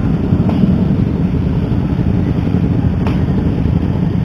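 Motorcycle engines running at low speed in a slow-moving pack, a steady low rumble with wind buffeting the microphone.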